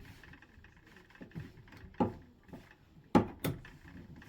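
Piston ring being worked onto an Indenor XD3T diesel piston by hand, with light handling noise and three sharp clicks: one about halfway through, then two close together near the end, the first of those the loudest.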